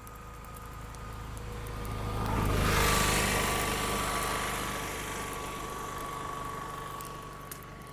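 A road vehicle passing, its engine and tyre noise swelling to loudest about three seconds in and then fading away, over the light crackle of a small fire.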